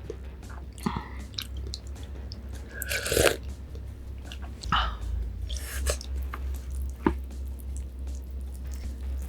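Close-miked eating sounds: steady chewing with many small mouth clicks and a few louder crunching bites, the loudest about three seconds in, over a low steady hum.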